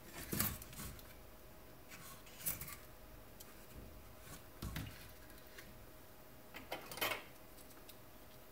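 Two TV backlight inverter circuit boards being handled and turned over on a sheet of paper: a few short rustles and knocks, the loudest about half a second in and again near seven seconds.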